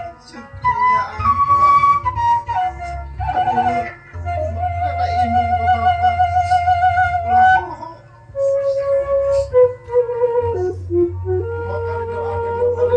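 Slow flute music: a melody of long held, slightly wavering notes, with one note held for several seconds in the middle and lower notes stepping down in the second half.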